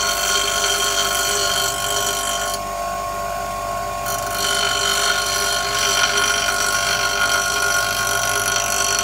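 Bench grinder running steadily while a steel woodturning tool is ground against its wheel to sharpen it, giving a high grinding hiss over the motor's hum. The grinding stops for about a second and a half near the three-second mark, when the tool is lifted off, then starts again.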